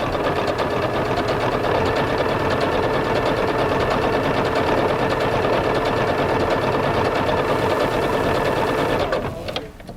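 Singer 7466 electric sewing machine running at a steady fast speed, stitching an overcast stitch along a fabric edge; it stops about nine seconds in.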